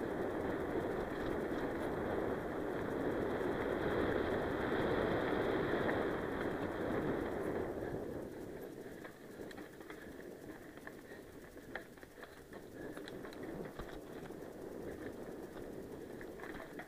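Mountain bike riding fast downhill over loose gravel and dirt: tyre noise and wind rushing over the camera microphone. About eight seconds in it drops quieter, leaving tyre crunch and scattered clicks and rattles from the bike over rough ground.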